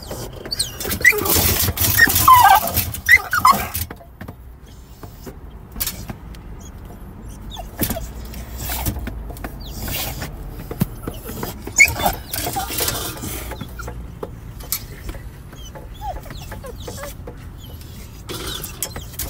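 A female dog in a metal crate whining in short, high, wavering cries, most often in the first few seconds and then now and again. The whining is the sign of her being agitated in the crate.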